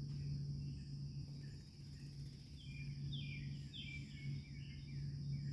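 A bird calling a quick series of short chirps, each falling in pitch, from about two and a half seconds in to about five seconds. Behind it, insects keep up a steady high-pitched drone and a low steady hum runs throughout.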